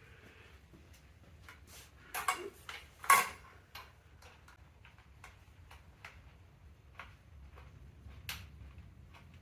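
Small metal clicks and clatter of hand tools and screws being handled while screws are fitted to an e-bike's rear fender, with a louder clatter about three seconds in and a string of light, irregular ticks after it.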